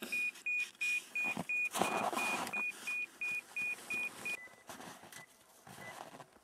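Avalanche transceiver (ARVA) beeping rapidly, about three short high beeps a second, the fast rate it gives at close range to a buried transmitter. The beeping stops about four seconds in. There is a short burst of rustling noise around two seconds in.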